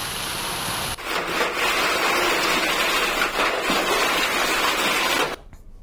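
Heavy rain falling, a steady hiss that gets louder at a cut about a second in and cuts off abruptly near the end.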